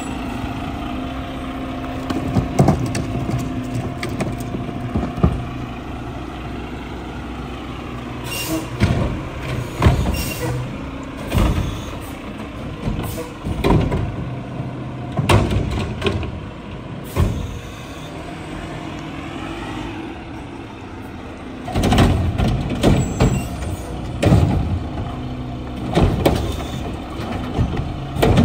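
Mack LR garbage truck's engine running steadily, its pitch rising and falling at times, with many sharp bangs and thumps of recycling carts being handled and dumped into the Curotto-Can front carry can; the impacts cluster in the last few seconds.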